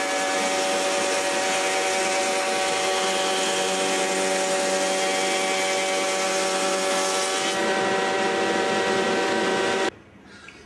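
Logosol H410 planer-thicknesser running with a timber being fed through the thicknesser: a steady motor whine under the hiss of the cutterhead planing the wood. The cutting hiss eases about seven seconds in as the board passes out, and the sound cuts off suddenly near the end.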